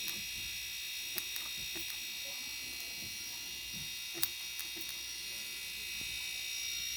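Two refrigerator compressors running together as an air compressor, a steady low hum with a high buzz, with a few faint clicks.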